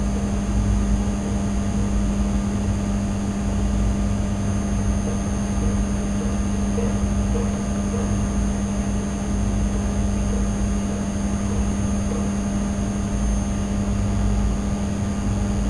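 Steady hum: one strong low tone over a rumble beneath it, holding an even level.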